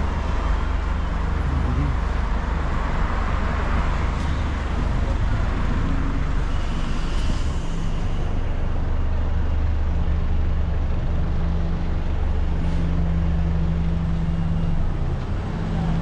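Busy main-road traffic: a steady low rumble of car and bus engines, with a short hiss about seven seconds in.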